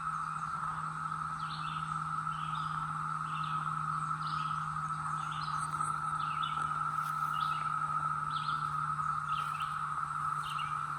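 Steady chorus of Brood X periodical cicadas droning without a break. Over it, a bird gives short chirps about once a second, and a faint low hum runs underneath.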